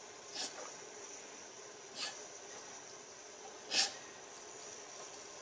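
Jensen Model 50 toy steam engine's cylinder giving three short puffs of exhaust steam, about one every second and a half to two seconds, over a steady faint hiss. The flywheel is being turned slowly to warm the cold cylinder, so steam condenses and the engine is kept going easy.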